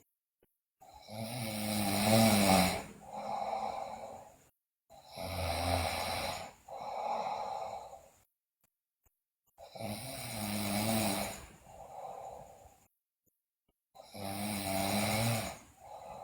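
A sleeping girl snoring in four slow breath cycles. Each is a loud snore followed by a shorter, softer one, with a brief quiet pause before the next.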